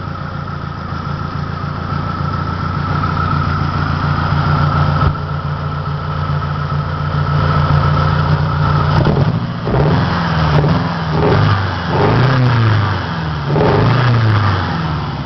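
1993 Saturn SW2's 1.9-litre DOHC four-cylinder engine running in park with a misfire and low power, idling steadily and then revved in about four short blips during the last six seconds. A single sharp knock sounds about five seconds in.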